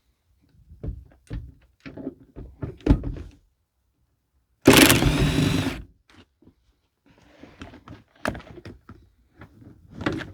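A series of knocks and thunks from work inside a truck cab's interior, with a loud rasping burst lasting about a second near the middle, followed by more scattered clicks and knocks.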